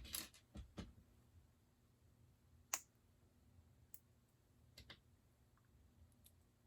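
Plastic Lego pieces clicking as they are handled and pressed together, a few scattered sharp clicks, the sharpest about three seconds in.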